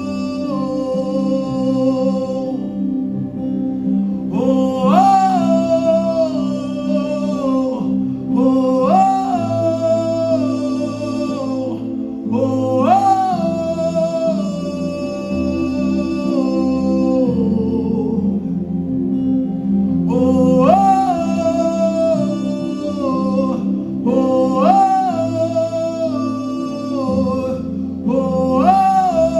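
Worship song: a voice sings long held phrases, each swooping up in pitch at its start, about every four seconds, over sustained chords and a bass line.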